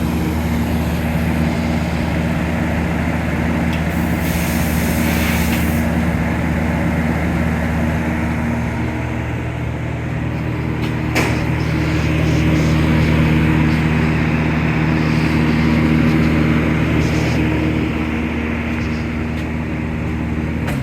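Miller Syncrowave 350 TIG welder running an AC arc on an aluminum plate: a steady, loud electrical buzz with the machine's transformer hum beneath it. The buzz grows louder partway through and cuts off suddenly at the end as the arc is stopped.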